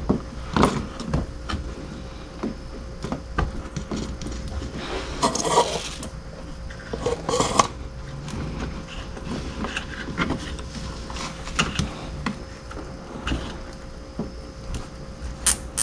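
Hands working a plastic zip tie around fog light wiring: scattered small clicks and two brief rustling scrapes, over a faint steady hum.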